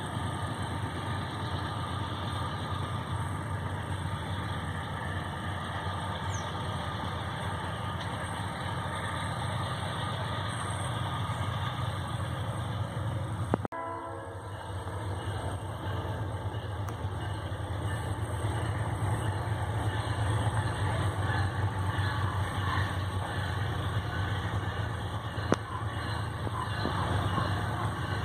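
Diesel-electric locomotives of an iron-ore train, GE Dash-9 units, approaching from a distance with a steady low engine rumble. The sound breaks off abruptly about halfway, then grows slightly louder as the train draws nearer.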